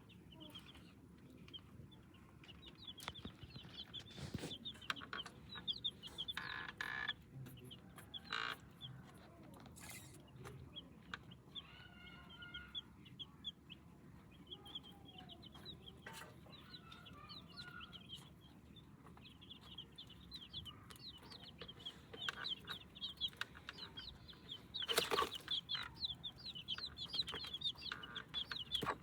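Chicks peeping in quick, continuous high chirps, with a hen clucking now and then. A short, louder burst near the end.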